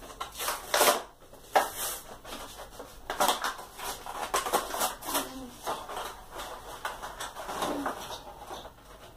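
Plastic blister and cardboard backing of a die-cast toy car package being handled and pulled open: a run of irregular crinkles, crackles and small knocks.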